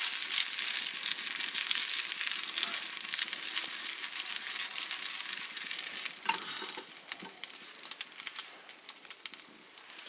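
Hot oil sizzling and crackling in a pan as food fries, dense and steady at first, then quieter and sparser from about six seconds in.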